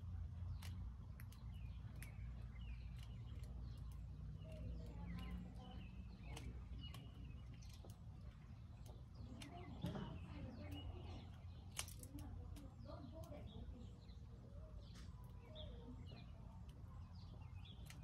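Small birds at a feeder chirping and calling in short, scattered notes, fairly faint. Sharp clicks are scattered throughout over a steady low rumble.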